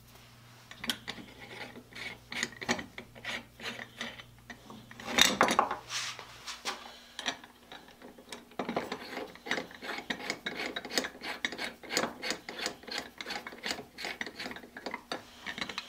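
Small steel parts of a band saw's upper axle bracket being handled and fitted by hand: a loud scrape about five seconds in, then a long run of quick metal clicks.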